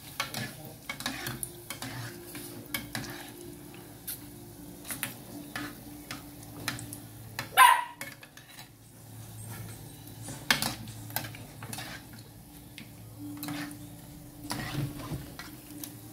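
Metal spoon clinking and scraping against an aluminium pot while dough balls fry in hot oil, with a faint sizzle underneath. One louder sharp sound stands out about seven and a half seconds in.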